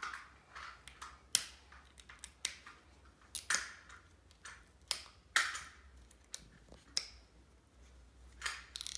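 Fingers picking at and peeling the plastic wrapping off a LOL Surprise ball: irregular crackles and clicks with short rustles.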